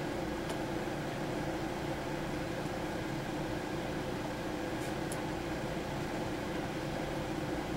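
Steady low hum and hiss of background noise, with a few faint clicks of small plastic toy pieces being fitted in place: once about half a second in and twice around five seconds in.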